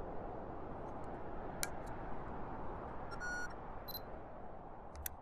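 Ambient sci-fi sound bed: a steady low rushing noise with scattered sharp clicks, a short cluster of electronic beeps a little after three seconds and another beep near four seconds. It fades out near the end.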